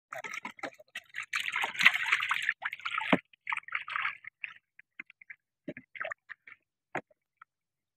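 Water splashing and sloshing as a hooked eel thrashes at the side of a small wooden boat while it is hauled aboard, busiest in the first three seconds and ending in a sharp knock, then scattered small knocks and drips.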